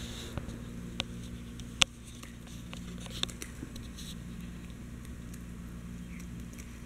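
Chihuahua gnawing a hard chew bone: scattered sharp clicks and cracks of teeth on the chew, the loudest about two seconds in.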